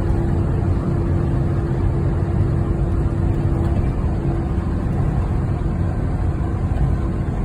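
Car driving, heard from inside the cabin: a steady low rumble of tyre and engine noise on a rough, frost-heaved road, with a faint steady hum that fades about halfway through.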